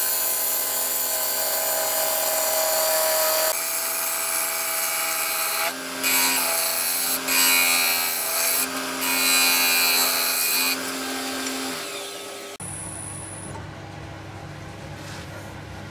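Wood lathe running while a gouge cuts a spinning wooden plate: a loud hiss of shavings coming off over the lathe motor's steady whine, in several short passes. About twelve seconds in the cutting stops and only the lathe is heard, spinning the plate more quietly.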